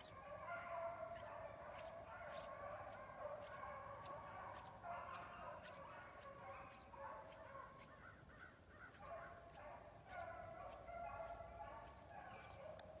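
A pack of rabbit hounds baying while running a rabbit: several voices overlap in a steady, faint chorus of howls and short yelps.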